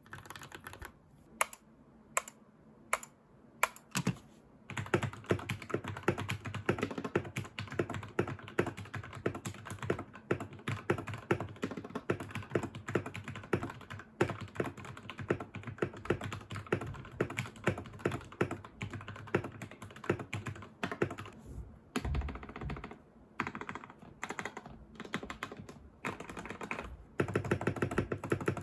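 Royal Kludge RK68 mechanical keyboard with lubed RK Red linear switches, lubed stock stabilisers, tape mod and case foam, being typed on. A handful of single keystrokes come first, then fast continuous typing from about five seconds in.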